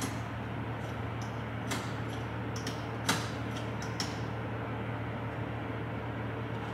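A few sharp clicks and knocks from a diesel pump nozzle and fuel tank being handled at a semi truck's fuel island, the loudest about three seconds in, over a steady low hum.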